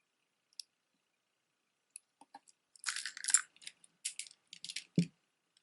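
Costume jewelry being handled: light clicks and scratchy rustling in two clusters about three and four seconds in, then a single dull knock about five seconds in as a piece is set down.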